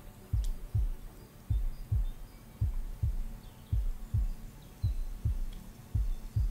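Slow heartbeat sound, a low double thump (lub-dub) repeating evenly about once a second over a steady low hum.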